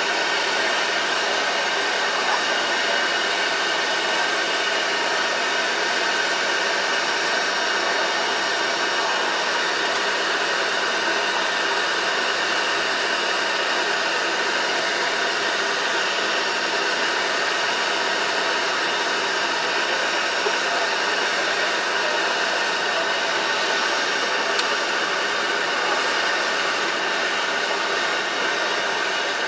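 Boeing 737-500's CFM56 jet engines at taxi idle, heard inside the cockpit: a steady rush of air with several steady high whining tones over it, easing a little at the very end.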